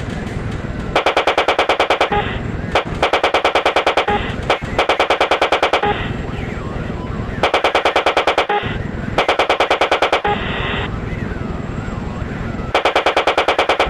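Six bursts of automatic gunfire, each about a second long at roughly ten rounds a second, over a steady low drone.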